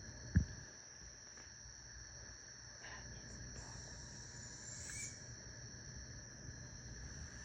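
Night insect chorus of crickets trilling steadily at two high pitches, with a single low thump about half a second in.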